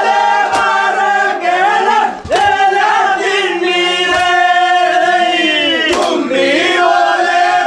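A group of men singing vanchipattu, the traditional Kerala snake-boat song, in unison with long held notes. A sharp beat falls about every two seconds.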